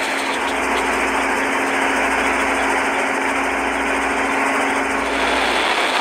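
Motorboat under way: its engine running steadily with a constant hum, over a loud, steady rush of water and wind. The hum fades out near the end.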